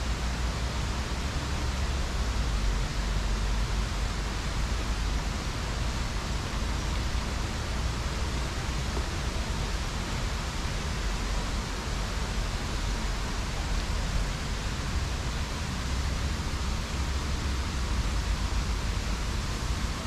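Steady rushing of a mountain stream swollen with rainwater, an even hiss of running water with a low rumble underneath.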